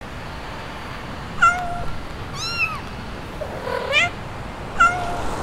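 A cat meowing four times, short separate meows about a second apart over a steady background hiss.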